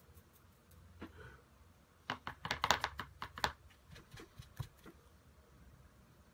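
A paintbrush being worked in quick, scratchy strokes: a run of about ten sharp little clicks and scrapes about two seconds in, then a few fainter ones.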